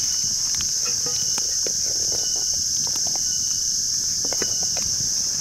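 A steady, high-pitched insect chorus, with scattered light clicks and taps.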